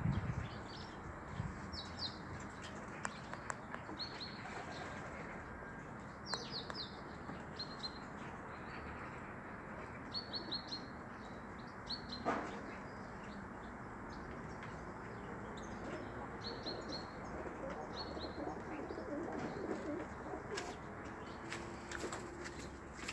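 Small birds chirping in short runs of two to four high notes every second or two, over a steady outdoor background hiss. Near the end, domestic pigeons start cooing.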